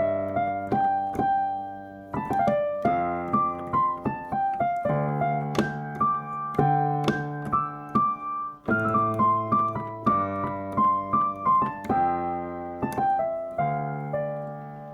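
Piano music: a melody of single struck notes over held lower chords, in phrases with short breaks, ending on a chord that fades away.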